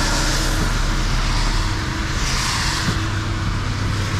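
Car driving on a wet highway: steady tyre hiss from the wet road over a low drone, the hiss swelling and fading a couple of times.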